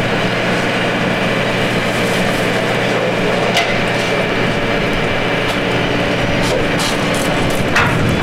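Steady low mechanical hum of running machinery, with a few light clicks and knocks over it.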